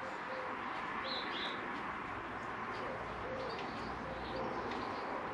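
Birds calling: low cooing notes at intervals and a pair of high chirps about a second in, over a steady background hiss. Faint clicks of a hand tool work bolts out of the engine.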